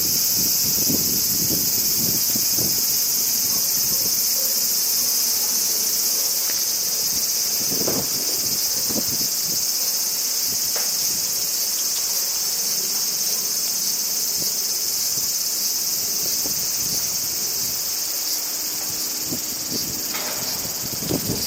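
Steady, high-pitched chorus of insects trilling without a break, with low gusts of wind buffeting the microphone now and then, most in the first few seconds and again about eight seconds in.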